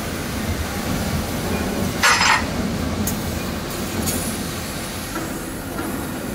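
A CNC fiber laser tube cutting machine (CH-LT-6022, 3000 W) running: steady mechanical drive noise, with one short, loud burst of noise about two seconds in and a few faint ticks after it.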